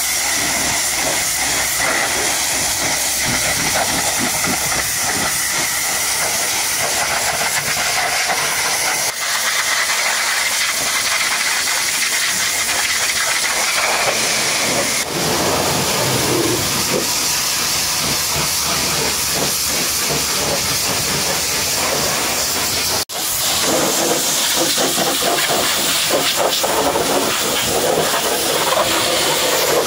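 High-pressure washer jet spraying water against a truck's tyre and wheel arch: a loud, steady hiss, with a faint high whistle under it in the first half and a brief dropout about 23 seconds in.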